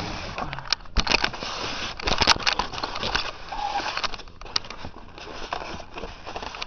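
Packaging rustling and crinkling, with irregular clicks and knocks, as an airsoft rifle is pulled from its box; it is busiest in the first half and quieter after about four seconds.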